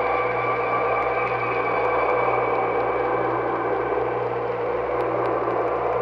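Horror-film ambient drone: a steady, unchanging bed of several held tones over a hissing noise.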